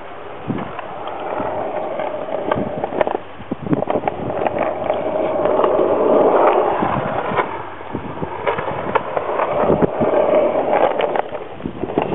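Skateboard wheels rolling on a concrete skatepark surface: a continuous rumble with a faint hum and scattered clicks and knocks, swelling around the middle and again near the end.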